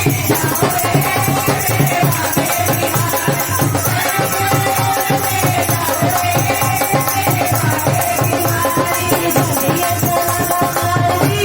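Krishna bhajan music in an instrumental stretch: a quick, even drum beat under a held, wavering melody line.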